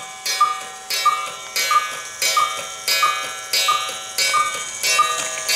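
Cuckoo clock cuckooing over and over without stopping, a sharp call about every two-thirds of a second with a ringing tone carrying between calls: the clock has a fault that keeps it cuckooing nonstop.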